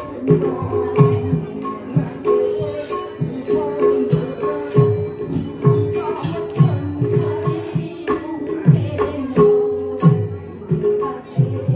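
Live devotional music: a barrel drum beaten in a steady rhythm, its low strokes falling in pitch, with small metal cymbals ringing in time over a held note.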